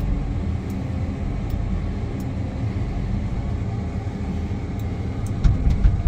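Feller buncher's diesel engine running steadily, heard from inside the cab while the self-levelling hydraulics tilt the chassis, with a few short clunks near the end.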